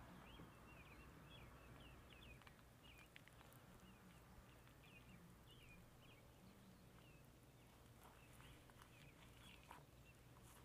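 Near silence with faint chirping of small birds throughout, many short chirps in quick runs, and a few faint clicks.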